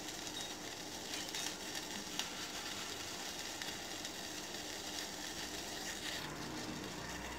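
Water boiling in a stainless steel pot on a gas stove: a steady bubbling hiss, with a couple of faint ticks.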